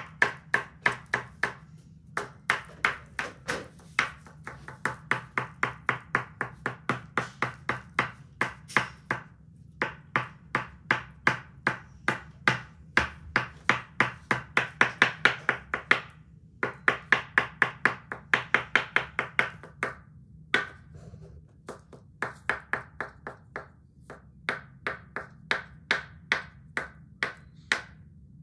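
White oil pastel tapped over and over onto black paper on a wooden table, dotting stars: sharp taps at about three or four a second, with a few short pauses.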